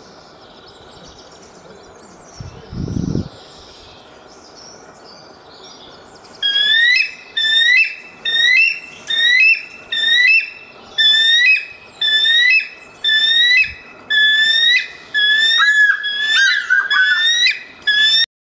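Bald eagle calling: a long series of high, piping chirps, each note sliding up and then levelling off, about three every two seconds, starting about six seconds in. Earlier, over a faint background hiss, there is one low thump.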